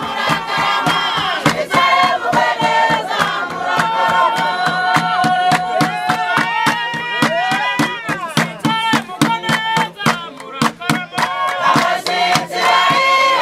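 Music with a steady beat and group singing voices.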